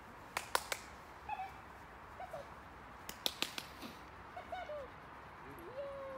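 A person calling a dog in with tongue clicks and short soft calls. There are two quick runs of sharp clicks, a few brief pitched calls, and a longer note near the end that rises and then slides slowly down.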